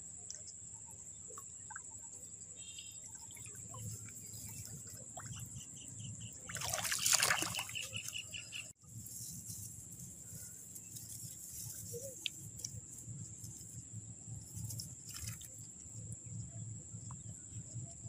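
Splashing in shallow rice-paddy water, loudest for about two seconds near the middle, as a hooked fish is hauled in by hand. A steady high insect whine goes on underneath.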